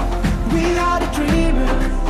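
Background music with a sung melody over a steady bass.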